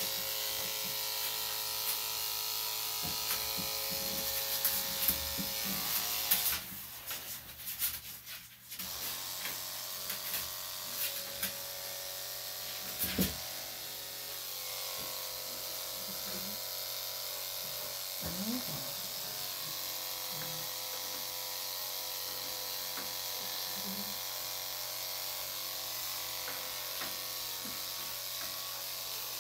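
Electric dog grooming clipper fitted with a #10 blade, running with a steady motor hum. About seven seconds in the hum breaks off for roughly two seconds amid clicks and handling noise, then runs steadily again.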